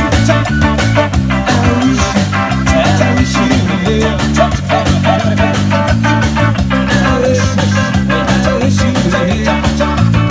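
Live reggae band playing an instrumental passage: a wavering electric guitar melody over a bass line and drums with a steady beat.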